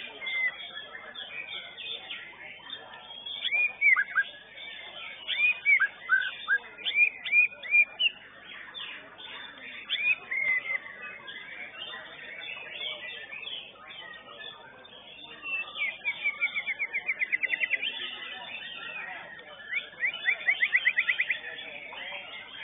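White-rumped shama (murai batu) singing: loud, clear whistled phrases of arching and down-sweeping notes, then two fast trills of rapidly repeated notes, about ten a second, in the second half.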